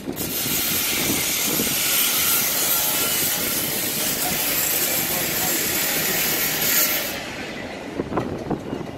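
A loud, steady hiss from construction equipment on a building site starts suddenly and cuts off about seven seconds in, over a low rumble of site noise.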